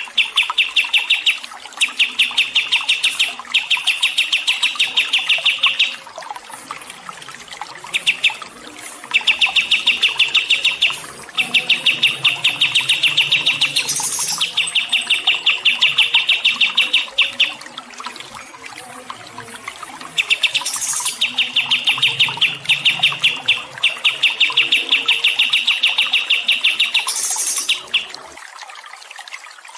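Small songbird singing a rapid run of sharp chirps, about ten a second, in strings of two to three seconds broken by short pauses, over a faint trickle of running water. The chirping stops shortly before the end, leaving only the water.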